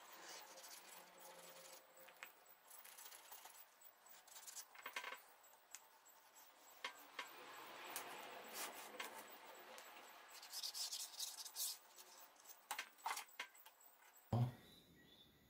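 Faint clicks, taps and light rubbing from a tablet and small repair tools being handled, with one louder knock about 14 seconds in.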